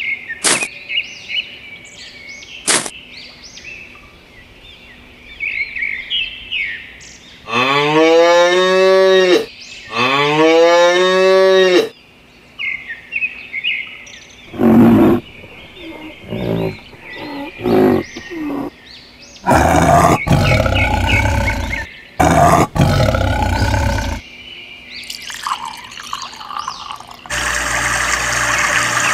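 Cows mooing: two long moos in a row, each rising and then falling in pitch, with short bird chirps before them and further animal calls after. Near the end a steady rush of flowing water starts.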